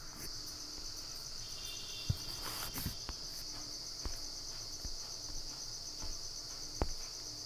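Steady, high-pitched background chirring of insects, finely pulsed, with a few faint clicks.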